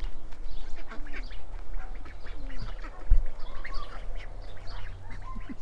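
Farmyard poultry calling: many short, overlapping calls from a yard of mixed fowl, over a low rumble of wind on the microphone, with a single thump about three seconds in.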